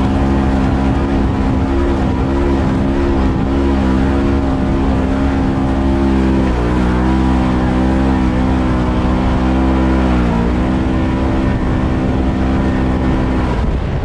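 Polaris RZR 1000 side-by-side's twin-cylinder engine running hard while driving across sand. Its note dips briefly about halfway through and again about three-quarters through, then drops away near the end.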